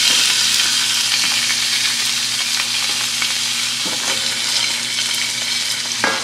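Raw chicken stir-fry pieces sizzling in hot oil in a nonstick frying pan, a steady loud hiss with scattered crackles as the chicken starts to brown. There is a brief knock near the end.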